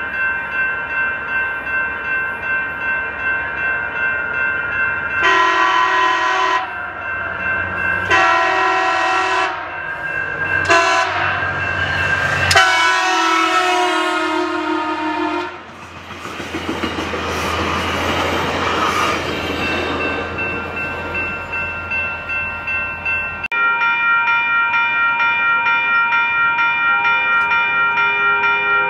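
Railroad grade-crossing bell ringing steadily while a locomotive horn sounds the crossing signal: two long blasts, a short one, then a long one that drops in pitch as the train passes. The passing train's rumble follows. The ringing continues alone after a sudden change near the end.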